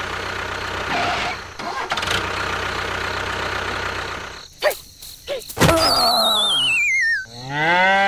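Sound effects for a toy farm scene. First comes a steady noisy hum for about four seconds, then a few short chirps and a knock, then a wobbly whistle sliding down in pitch. A cow moos near the end.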